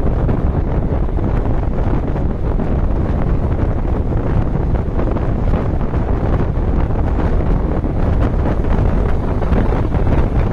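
Steady wind rush buffeting the microphone at a window of a moving bus, over the low rumble of the bus and its tyres on the road.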